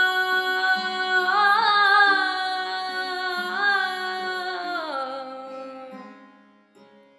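A woman singing a long wordless vowel phrase in Carnatic style over a steady drone. The phrase wavers, slides down about five seconds in, and then fades almost to silence.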